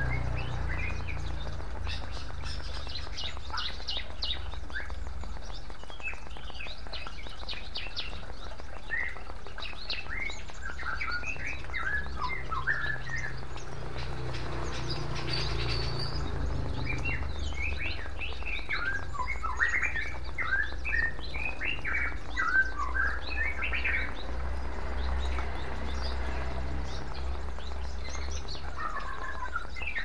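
Small songbirds chirping in bursts of quick falling notes, thickest in clusters around the middle and near the end, over the steady trickle and splash of water from a bamboo fountain into a clay bowl.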